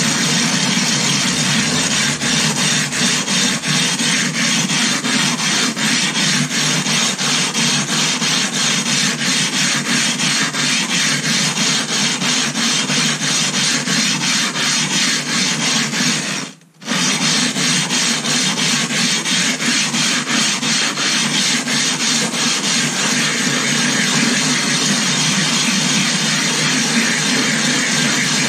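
Silicon carbide sharpening stone rubbed back and forth on a glass plate over loose coarse silicon carbide grit and water: a loud, continuous gritty grinding in quick, even strokes as the grit wears the stone flat. It stops for an instant a little past halfway, then carries on.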